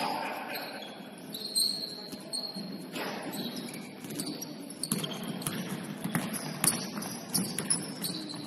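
Basketball game in a gym: sneakers squeaking briefly on the court, scattered thuds of the ball, and faint voices echoing in the hall.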